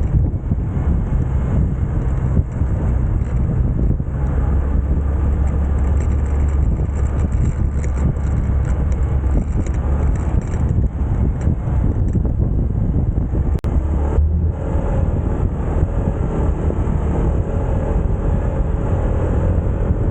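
Motorcycle running along the road, its engine under heavy wind buffeting on the microphone. One sharp click about two-thirds of the way through.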